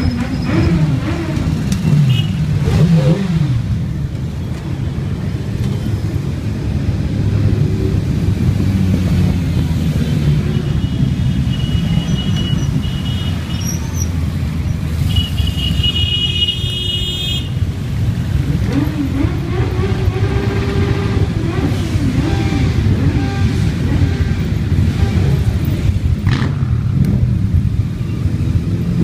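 A column of motorcycles and sidecar outfits rides past at low speed, engines running in a continuous rumble. Now and then one revs, its pitch rising and falling, near the start and again about two-thirds of the way through. Around the middle, two brief high tones sound over the engines.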